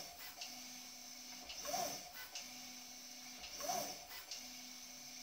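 A 3D printer's Z-axis stepper motor and BLTouch probe repeat a bed-probing cycle about every two seconds. Each cycle has a steady low hum as the axis creeps toward the probe, a click as the probe triggers and resets, and a quick whine that rises and falls as the axis moves back.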